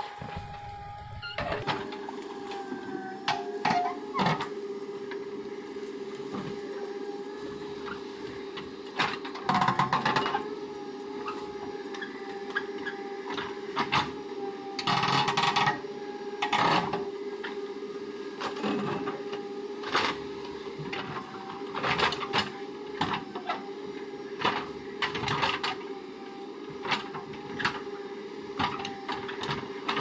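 JCB 3DX backhoe loader's diesel engine running at a steady hum while the backhoe digs, with frequent clunks and knocks from the bucket and arm. Louder scraping of the bucket through soil comes about ten seconds in and again around fifteen seconds.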